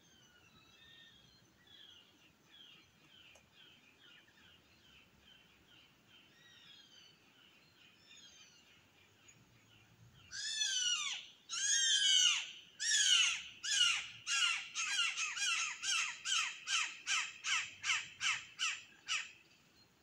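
A bird calling a loud series of harsh, downward-sliding notes from about halfway through, spaced about a second apart at first and speeding up to two or three a second before it stops near the end. Fainter, quicker repeated calls run through the first half.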